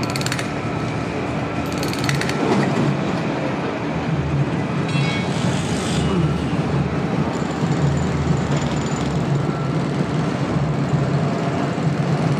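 Steady low rumble of urban vehicle traffic, heavy vehicles or trains passing, with no single event standing out.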